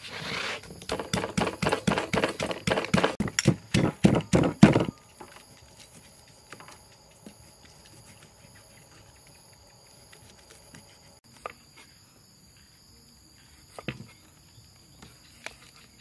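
Wooden pestle pounding in a deep wooden mortar: quick, regular knocks, about four a second, for around five seconds, then it stops.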